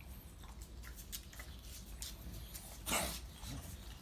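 An English bulldog and a small mixed-breed dog moving about a tiled terrace, with scattered light clicks and scuffs. About three seconds in there is one short, louder noisy burst.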